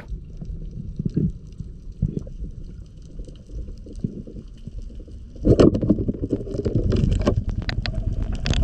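Underwater sound heard through a diver's head-mounted camera: a muffled low rumble of moving water. About five and a half seconds in it gets louder, with gurgling and a dense crackle.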